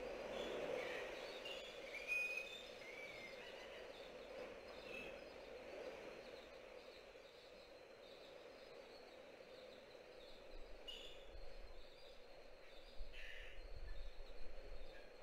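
Faint open-air ambience: a steady hum and wind noise, a few short bird chirps in the first three seconds, and low rumbles near the end.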